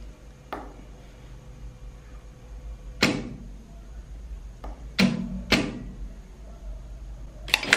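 Industrial straight-stitch sewing machine with a steady motor hum and a few separate sharp clunks, then a quick cluster of clunks near the end, as a topstitched seam is started with a backstitch.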